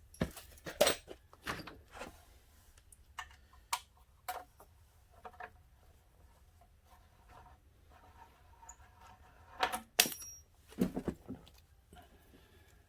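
Irregular clicks, clinks and knocks of hand tools and small metal fasteners as motorcycle fairing panels are unbolted and handled, with a brief metallic ring among a louder cluster about ten seconds in.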